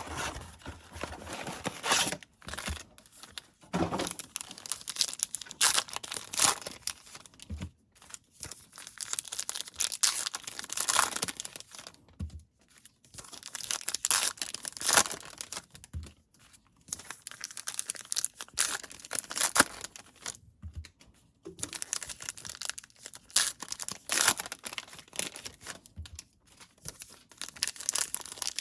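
Trading card pack wrappers being torn open and crinkled by hand, in repeated bursts of rustling separated by short pauses.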